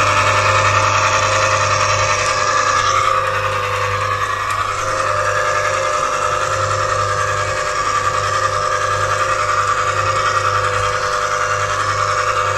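Aicok ice cream maker's electric motor running steadily, turning the paddle through thick, nearly frozen ice cream: a steady hum with a whine, a little quieter from about three seconds in.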